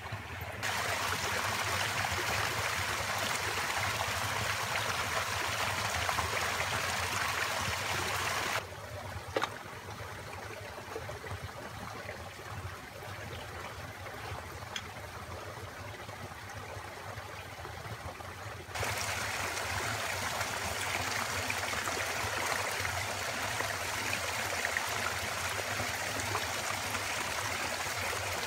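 Small forest creek running and trickling steadily. Its level drops suddenly about a third of the way in and comes back up suddenly about two-thirds of the way in.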